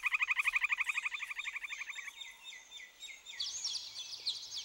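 Cartoon forest sound effects of animal calls. A fast trill of about a dozen pulses a second stops about two seconds in, and high, quick chirping starts near the end.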